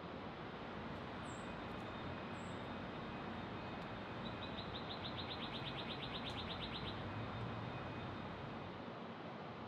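Quiet city street ambience: a steady hum of distant traffic, with two short high bird chirps early and, about four seconds in, a bird's rapid trill of roughly eight notes a second lasting nearly three seconds.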